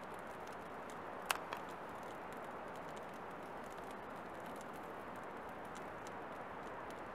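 Small fire of burning birch bark and soaked split kindling crackling, with scattered small pops and one sharper crack about a second in.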